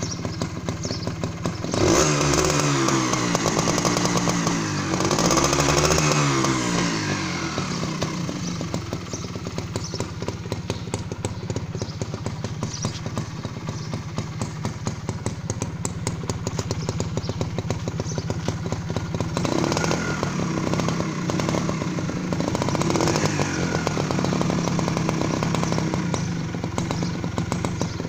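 Honda H100S CDI two-stroke single-cylinder motorcycle engine idling. It is revved up twice: first about two seconds in for several seconds, then again past the middle. The revs rise and fall and settle back to idle each time.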